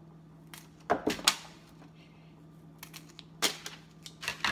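Kitchen scissors snipping the tough woody ends off asparagus spears: sharp, crisp snips, three close together about a second in and a few more near the end.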